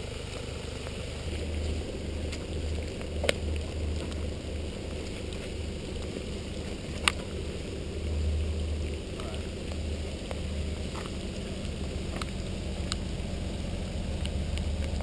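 A four-wheel drive's engine idling steadily with an uneven low rumble, and a few sharp clicks, the loudest about seven seconds in.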